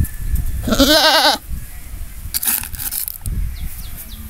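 Young goat bleating once, a single quavering call of well under a second, about a second in. Brief rustling and low bumps follow.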